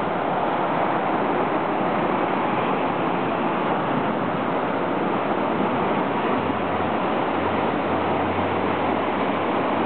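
Ocean surf breaking on a sandy beach: a steady, dense rush of wave noise, mixed with wind.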